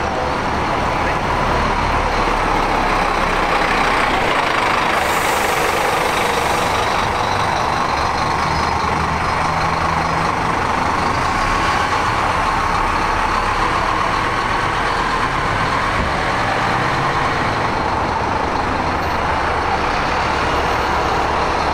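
Bus engine running steadily, with a short hiss about five seconds in.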